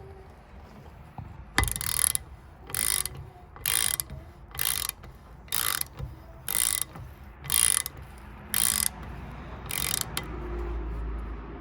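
Torque wrench ratcheting in about nine short strokes, roughly one a second, running nuts down toward a 100 ft-lb setting.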